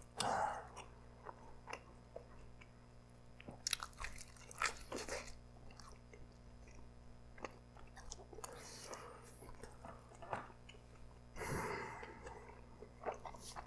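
Quiet, close-miked chewing of a soft stuffed pizza slice (pulled pork, cheese and sauce between two crusts), with short moist mouth clicks and a louder bite-like burst just after the start. There is no crunch: the crust has no crispness to it.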